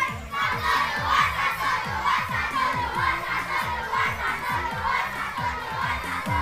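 A group of children shouting together as a marching troupe. Under the voices, music plays with a deep electronic kick drum at about three beats a second.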